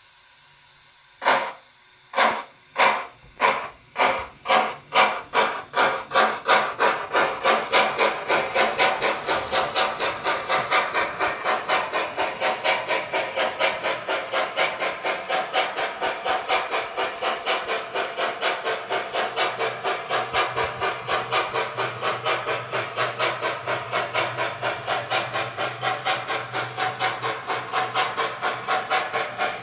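Bachmann J11 model steam locomotive's DCC sound decoder playing exhaust chuffs as it pulls away: after about a second of quiet, slow separate beats speed up over several seconds into a fast, steady chuffing.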